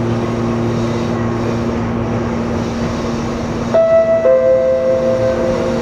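Steady running hum inside a moving train's cab. About four seconds in, a two-note electronic chime sounds, a higher note and then a lower one, both held: the on-board chime that comes before the automated next-station announcement.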